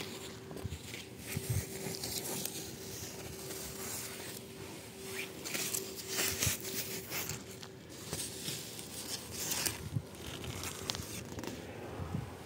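Eggplant leaves rustling and crackling as they brush against the camera while it moves through the plants. A faint steady hum sits underneath and stops about eight seconds in.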